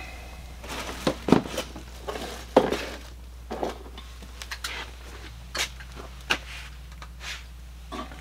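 Someone rummaging through a box of household goods: irregular knocks, rustles and light clinks of items being moved, the loudest about a second and a half in and again near three seconds, over a steady low hum.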